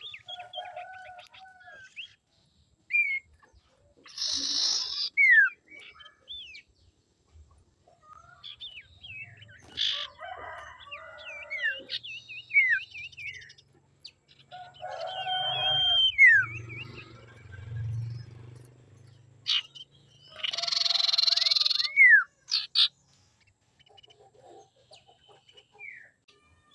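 Common iora calling in irregular phrases: short falling whistles, wavering trilled notes and, twice, a loud harsh rasping burst, with pauses between phrases.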